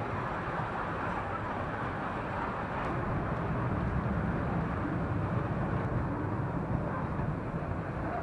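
Children's amusement-park train ride running along its steel track: a steady rolling rumble, heavier in the low end from about three seconds in.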